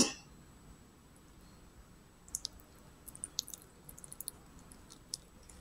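Metal spoon scooping thick cooked oatmeal in a bowl: a few faint, scattered clicks and soft squishes, mostly between about two and five seconds in.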